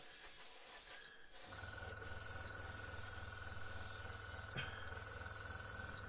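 Gaahleri GHAD-68 trigger airbrush hissing as it sprays a thinned gloss coat, with a few short breaks where the trigger is let off. About a second and a half in, a steady low hum with a higher steady tone starts underneath and keeps going.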